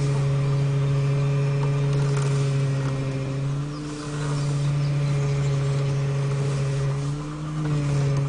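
Hydraulic power steering rack of a Mitsubishi Lancer 9 humming, the fault this rack is being shown for. A steady low hum that wavers and dips briefly about four seconds in and again around seven seconds.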